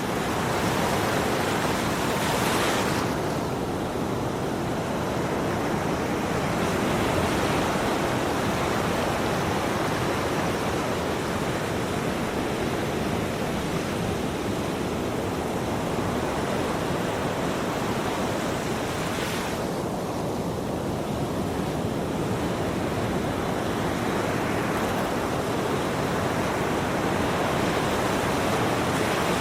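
Ocean waves breaking and washing on a shore in a continuous dense hiss, swelling and easing slowly every several seconds.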